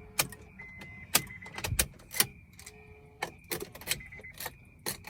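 A bunch of car keys jangling and clicking as they are handled, a dozen or so sharp irregular clicks, about two or three a second. Faint short tones sound in the background.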